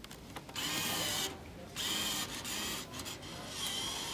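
Vending machine bill acceptor motor whirring in several short spells as it draws a banknote in. Each spell carries a steady high whine, and the first starts about half a second in.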